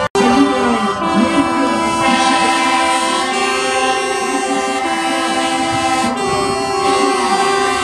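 Truck air horns blowing long, sustained notes that switch back and forth between two pitches every second or so.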